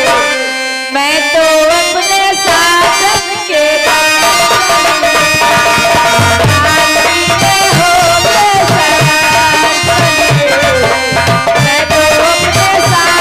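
Live Indian folk stage music: a sustained keyboard melody, with a rhythm of low drum strokes joining in about six seconds in.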